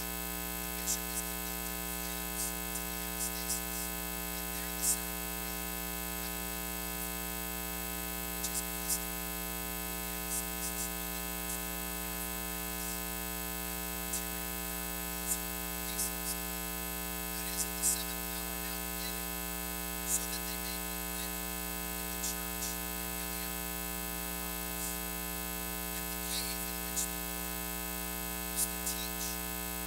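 Steady electrical mains hum with a dense stack of overtones, with irregular faint clicks and crackles scattered through it. No speech comes through.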